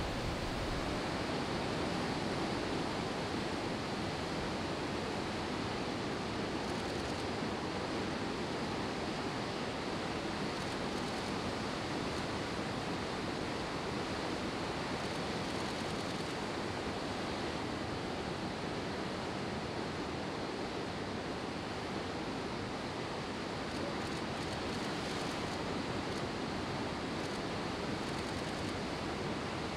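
Big ocean surf breaking, heard as a steady wash of noise with no single crash standing out.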